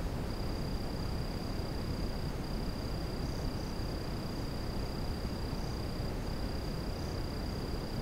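Steady outdoor hiss and rumble picked up by a trail camera's microphone, with a thin, continuous high-pitched tone and a few faint, short high chirps.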